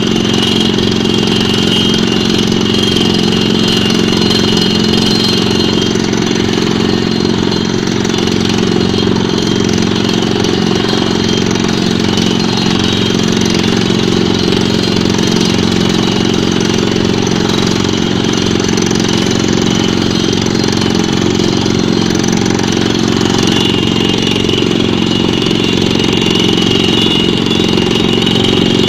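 Pneumatic drilling rig running steadily, its engine giving a loud, even note.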